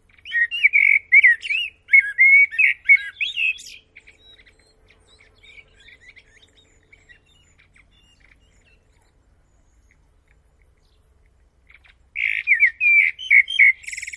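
Common blackbird singing: a loud, fluty warbled phrase that ends in a higher, squeakier twitter. A long pause with only faint notes follows, then another phrase begins near the end.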